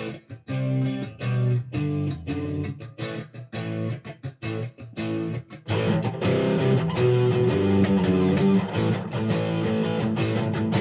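Song intro on guitar: separate chords played one after another with short gaps for about five and a half seconds, then the full backing comes in, denser and brighter, and runs on without breaks.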